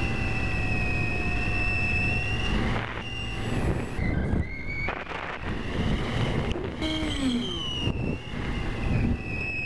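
Onboard audio from an electric foam RC plane in flight: the whine of its brushless motor and propeller, drifting in pitch with the throttle, over wind noise on the microphone. The sound breaks off and changes abruptly several times.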